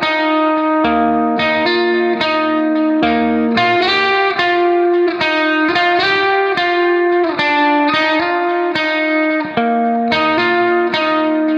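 Background music: plucked guitar-like notes in a steady run over a low bass line.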